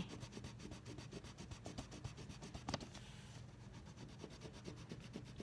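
Colouring on paper: a pencil or crayon rubbing in quick, even back-and-forth strokes, with one light tap a little past halfway.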